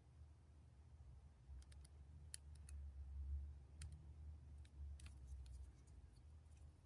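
Near silence over a low hum, with scattered faint light clicks and rustles from fingers handling a ribbon-wrapped metal hair barrette.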